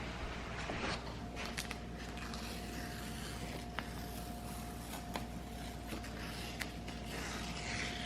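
Razor blade scraping freshly applied epoxy flush over a filled crack: soft scraping strokes with scattered light clicks. A faint steady tone runs underneath from about a second in.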